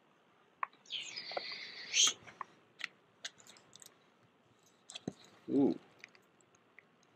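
Rustling, scraping and scattered clicks of books being handled and pulled from a library shelf, loudest in a scratchy rustle about a second in. A brief low vocal sound, like a murmured 'mm', comes a little after the middle.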